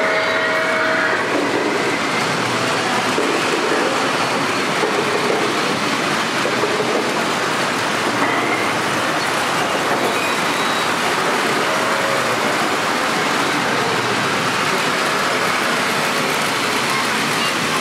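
Model freight train rolling along its track through a tunnel, with a steady rumble of wheels on the rails.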